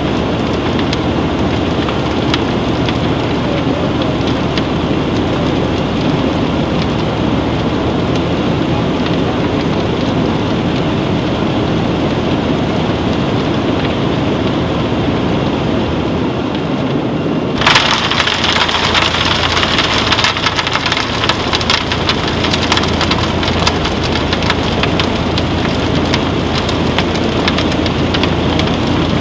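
Crystal potash grains flowing and pattering over the steel of a vibrating-floor silo reclaimer, a continuous rain-like hiss over a steady low hum. About 18 seconds in the sound jumps to a brighter, louder crackle of many fine grain impacts.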